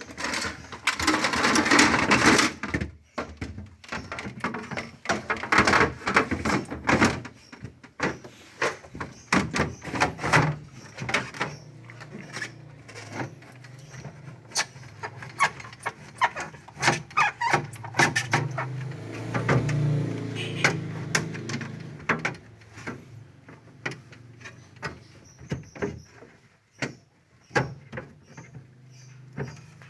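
Handling and cleaning inside a refrigerator being defrosted: many knocks and clicks against plastic and metal, with a few stretches of scraping, the longest near the start and again about two-thirds through.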